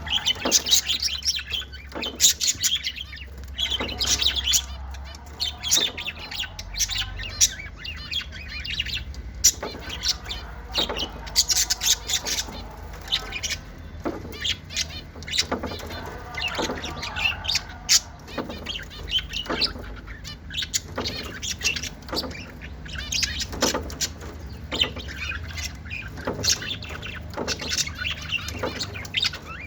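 Lovebirds chirping and chattering, a dense stream of short, shrill calls overlapping one another without a break.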